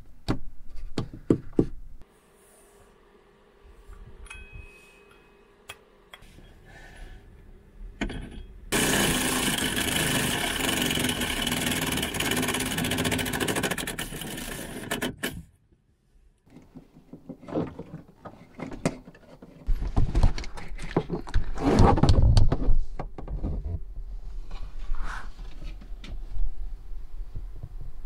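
Power drill boring a hole through a cabinet panel, running steadily for about six seconds in the middle. A few knocks come near the start, and bumping and handling noises follow later.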